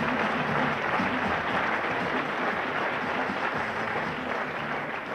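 Audience applauding, a dense and steady clapping that starts to die away near the end.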